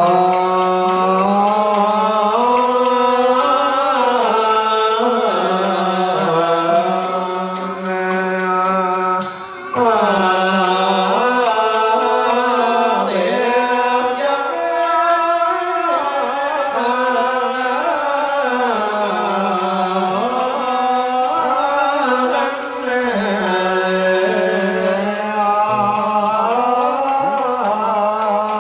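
A man's voice chanting a Huế Buddhist ritual chant in long, held phrases that slide and waver between notes, with a brief break for breath about nine seconds in.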